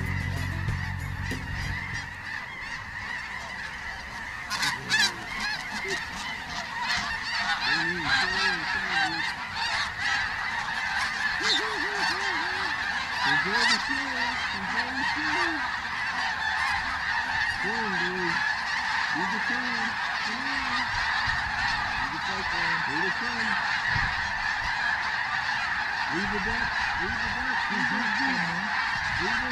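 A large flock of geese honking and calling continuously, a dense overlapping chorus with individual nearer honks standing out.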